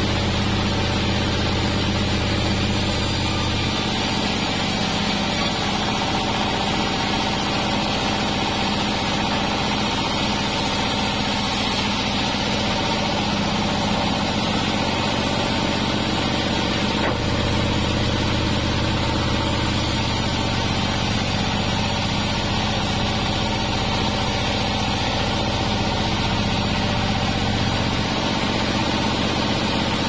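Sawmill band saw running steadily while a cananga log is fed through the blade, a continuous machine drone with a low hum that drops and comes back a few times.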